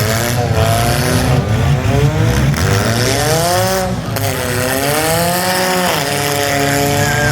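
Several demolition derby cars' engines revving hard at once, their pitches rising and falling as the cars accelerate and back off, over a constant low rumble.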